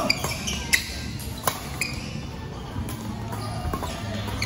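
Badminton rally: sharp cracks of rackets striking the shuttlecock, several in the first two seconds and another near the end, with short squeaks of shoes on the court floor.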